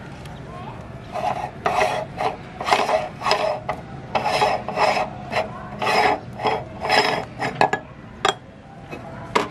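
Metal retaining ring of a meat grinder being twisted off its pulp-clogged threads: a series of gritty metal-on-metal rasping strokes, about two a second, followed by a couple of sharp clicks near the end.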